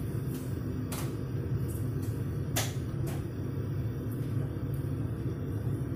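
Steady low hum of a running kitchen fan, with a few sharp clicks and knocks of kitchen utensils, the loudest just past the middle.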